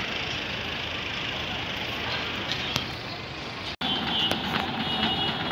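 Steady city traffic noise, a dense hiss and rumble. It cuts off abruptly about four seconds in and gives way to a different outdoor background with faint, short, high-pitched squeaks.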